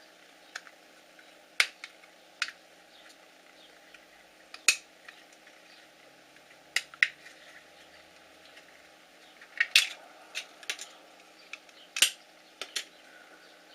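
Scattered sharp clicks and light knocks of an emptied plastic alarm clock casing and its small parts being handled, about a dozen, irregularly spaced.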